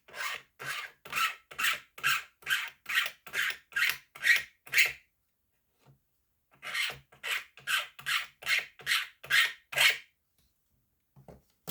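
Hand sanding or filing strokes, back and forth about twice a second, in two runs with a short pause near the middle, taking down a spot that sits a little off flat.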